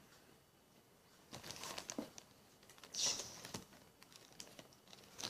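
Plastic marshmallow bag crinkling in two short bouts as marshmallows are taken out of it, with fainter rustles between.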